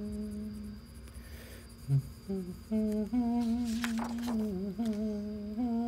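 A person humming a slow tune in held notes, pausing briefly and picking it up again. About four seconds in there is a short rustle of paper.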